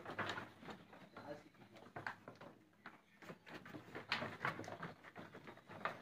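Faint, irregular knocks and shuffling of sheep hooves on a raised wooden slatted pen floor as the flock moves about.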